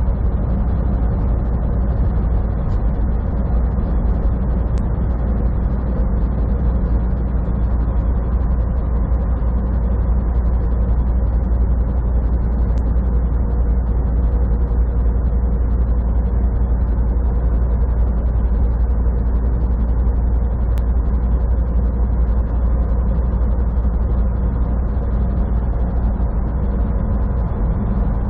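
Semi truck cruising at highway speed, heard from inside the cab: a steady, even low engine drone mixed with tyre and road noise.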